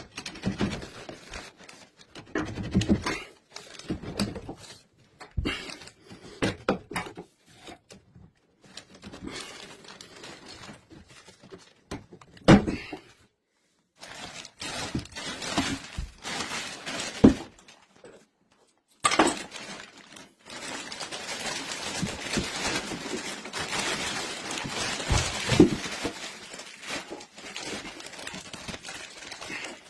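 Demolition work: repeated knocks, thuds and scraping of tools breaking up and clearing building material, then a steady rushing noise from about twenty seconds in.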